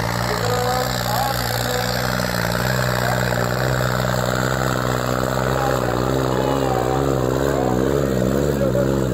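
Tractor engine running hard under load, with a steady drone whose pitch wavers up and down in the second half.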